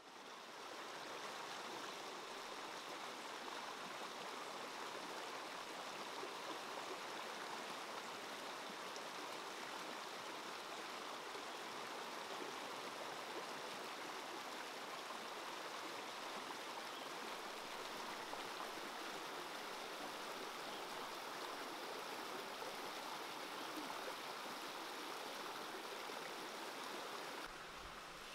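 Steady rush of a flowing stream, an even wash of water noise.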